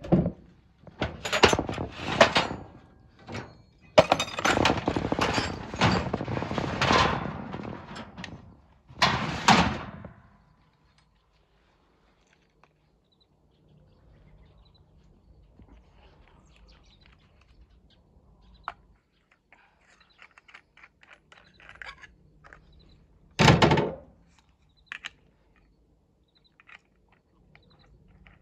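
Hand tools being handled on a metal tool cart. A thunk at the start is followed by several seconds of clattering and rattling, then a quiet stretch with faint ticks, and one more loud knock later on.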